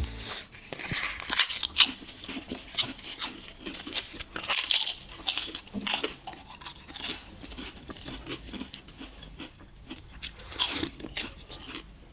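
Close-miked eating of avocado toast: crisp bites into toasted bread and irregular crunchy chewing, louder around two, four and a half and ten and a half seconds in.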